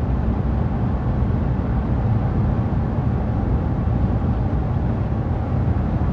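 Steady low rumble of engine and road noise heard from inside a car's cabin while driving.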